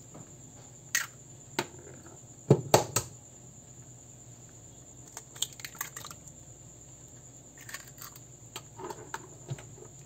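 Two eggs being cracked against a blender jar and opened into it: a scattering of sharp taps and clicks, the loudest two close together about two and a half seconds in, then fainter clicks of shell.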